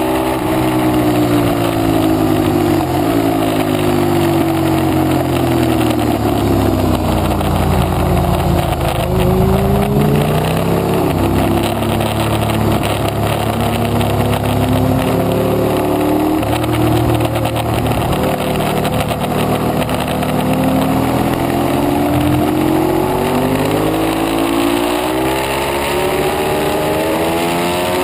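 Ducati 848 Evo's L-twin engine from on board at track speed: the revs fall through several downshifts while braking into a corner, bottoming out about a third of the way in, then climb again in steps through the gears as the bike accelerates out. Wind rush runs under the engine note throughout.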